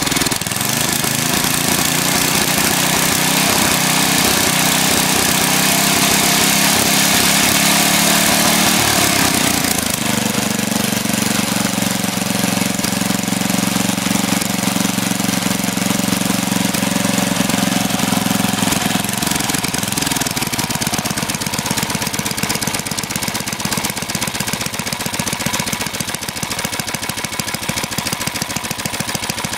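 Tecumseh HM100 single-cylinder four-stroke engine, freshly rebuilt, running on its first test run. It speeds up just after the start, then its speed shifts again around ten seconds in and once more around twenty seconds in.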